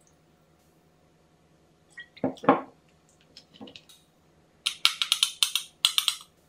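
Two knocks about two seconds in, then granulated sugar poured from a glass shaker into a metal spoon over a glass bowl: a dry, gritty pour in several quick shakes lasting about a second and a half near the end.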